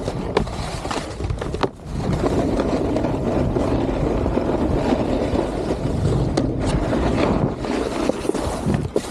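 Snowboard riding over packed snow: a steady rushing scrape of the board's base and edges, mixed with wind on the microphone, with a brief lull a little under two seconds in.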